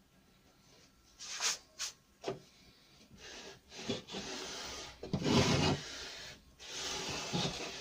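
Pencil scraping along a thin wooden batten to mark a curve on a board template, with the batten rubbing over the board. A few short scrapes come about a second in, then longer strokes follow from about three seconds in.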